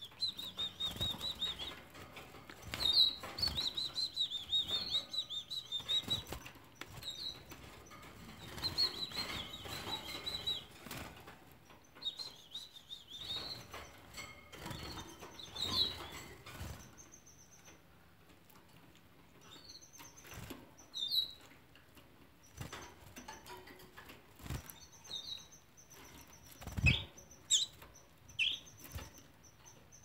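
Canary chicks begging while being syringe-fed: rapid trains of high chirps in bursts through the first half, then sparser, higher single chirps. Short wing flutters and a few soft knocks come in between.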